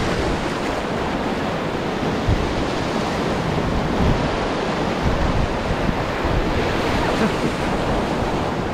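Whitewater rapids rushing loudly and steadily around a raft, with wind buffeting the microphone in low thumps.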